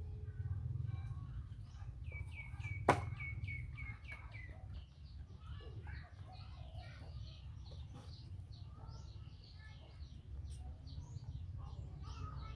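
Birds calling: a quick run of about ten short, falling, evenly spaced notes, then many scattered chirps, over a low steady rumble. A single sharp click about three seconds in.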